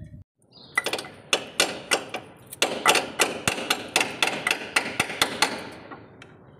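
Hammer blows on steel, a quick uneven run of sharp ringing strikes, about four a second, starting about a second in and dying away after about five seconds.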